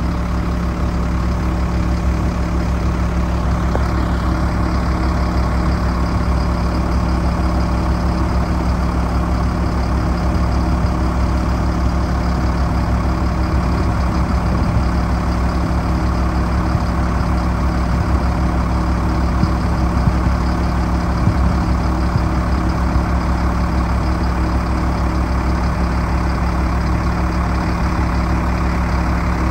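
Diesel engine of a 2000 Sterling vacuum truck running steadily at idle, a constant low hum that does not change pitch or level.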